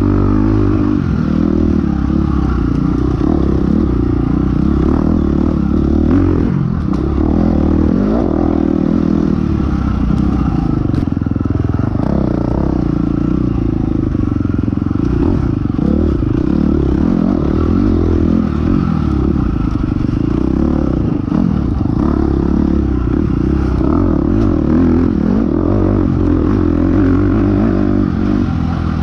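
Dirt bike engine running hard under load, its pitch rising and falling as the throttle is worked, with the clatter of the bike over rough ground.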